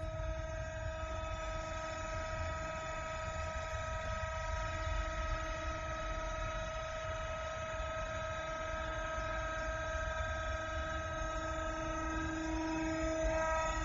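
Hydraulic oil pump of a tilting aluminium melting furnace running steadily as the furnace is lowered: a hum with several steady tones over a low rumble, growing slightly louder near the end.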